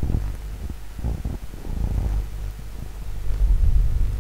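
Gas stove burner running under a pot of water as it heats, giving a low, uneven rumble with faint crackling, louder around three and a half seconds in.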